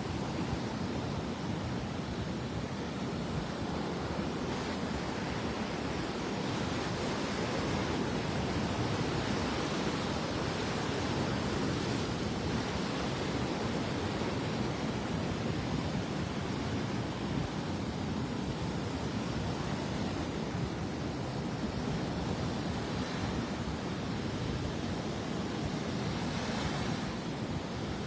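Gulf of Mexico surf breaking on the beach: a steady rush of waves with some wind, swelling a little about a third of the way in.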